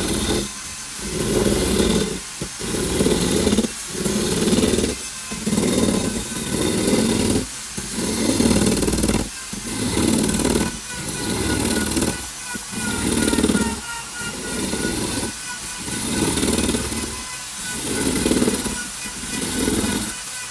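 Plum wood being cut or shaped with a woodworking tool, in regular rhythmic strokes that swell and fade about every one and a half seconds, with a hissy edge over a lower rasping body.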